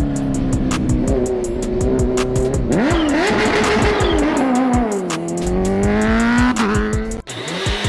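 Kawasaki H2R's supercharged inline-four engine at speed, its pitch rising and falling with the throttle and gear changes, cutting off suddenly near the end. Background music runs underneath.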